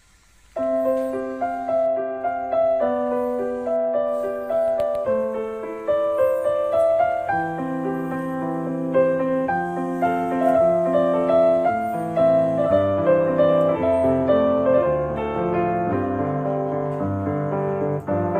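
Background piano music, a melody with chords, coming in abruptly about half a second in.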